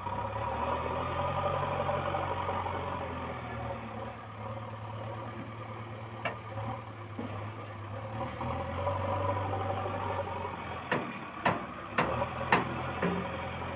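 JCB 3DX Plus backhoe loader's diesel engine running under load, its note shifting up and down as the loader arm lifts and dumps. One sharp knock about six seconds in and a quick run of four or five sharp knocks near the end stand out above the engine.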